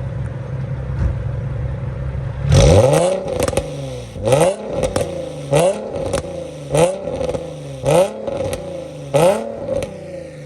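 2007 Nissan 350Z HR's VQ35HR V6, breathing through catless test pipes and an HKS catback exhaust, idling and then blipped hard about a dozen times in quick succession, each rev rising and falling: loud despite the big mufflers.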